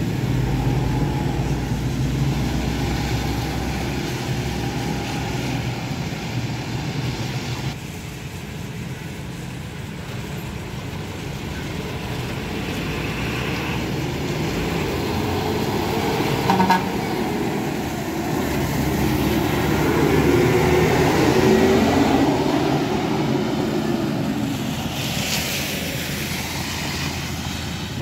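Buses passing on a wet road, one after another: first a Higer KLQ6119E3 coach's engine as it moves past, then, after a quieter stretch, a Yutong ZK6107HA coach's engine and tyres swelling as it comes closer, its engine pitch shifting as it passes. A brief sharp blip sounds a little past halfway, and a hiss of about a second near the end.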